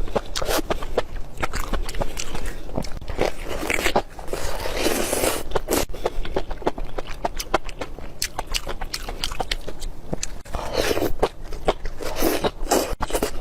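Close-miked chewing of spicy enoki mushrooms: a fast, dense run of crisp bites and mouth clicks, broken by a few softer, wetter chewing stretches.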